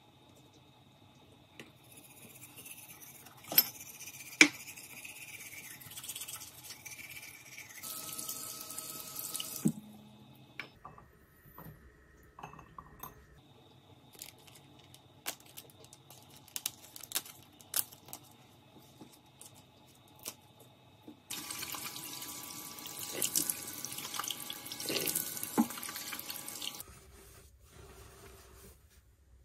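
Water from a single-lever tap running into a sink basin in two spells: a looser one in the first third and a steady one after the middle that starts and stops abruptly a few seconds before the end. Small clicks and knocks of items being handled at the sink run throughout, with two sharp knocks early on the loudest.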